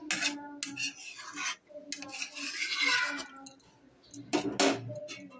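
Metal spoon stirring a thick simmering curry in a kadai, scraping and clinking against the pan several times, with a longer scrape about halfway through and a sharper knock near the end.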